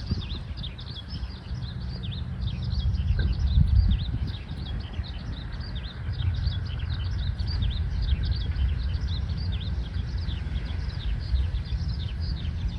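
Eurasian skylark singing: a continuous, hurried stream of high chirps and trills without a break, over a steady low rumble.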